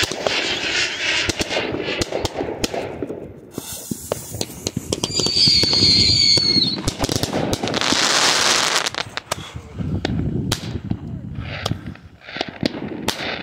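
Five-shot XL Roman candle: the lit fuse hissing and sputtering with sharp crackling pops, then the candle firing its red- and green-tailed stars with bangs. There are loud hissing bursts about eight seconds in and again near the end. A steady whistle runs for about two seconds midway.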